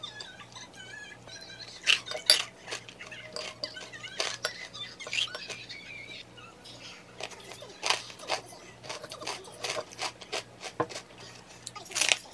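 Wooden fork scraping and tapping on a ceramic plate as Greek yogurt is scooped and spread onto a crisp piece of bread, in a run of small clicks and knocks. A sharper crunch near the end as the bread is bitten.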